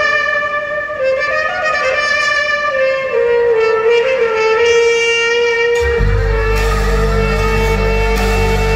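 Music played through a Samsung HW-Q800B soundbar and subwoofer: a pitched lead melody that moves up and down and then holds a steady note, joined about six seconds in by heavy deep bass from the subwoofer.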